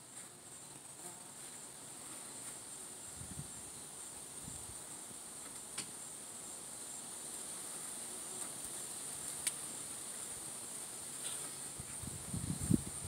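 Insects in the garden trilling in a steady, high-pitched, unbroken drone. A few short low thumps come near the end.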